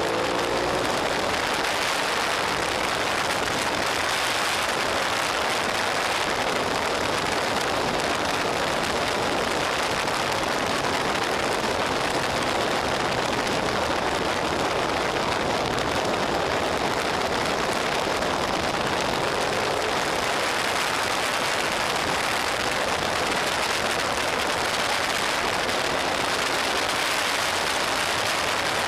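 Steady wind rush over a motorcycle-mounted camera's microphone at road speed, with the Suzuki SV650's V-twin engine faintly underneath. The engine note rises briefly near the start and again about two-thirds of the way through.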